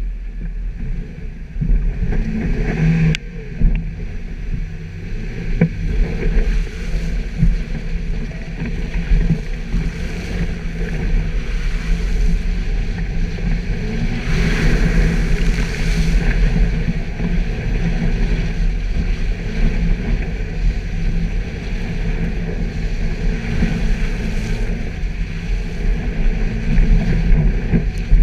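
Suzuki Jimny engine running steadily while driving off-road, with a continuous rushing noise over it and a couple of sharp knocks about three and six seconds in.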